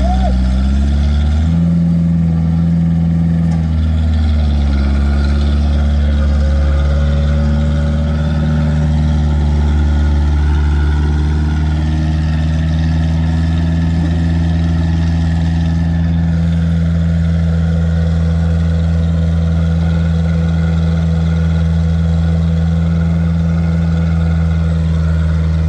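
Tractor's diesel engine running steadily while pulling a bed-forming, plastic-mulch-laying implement. Its note rises a little about two seconds in and settles back about two seconds later.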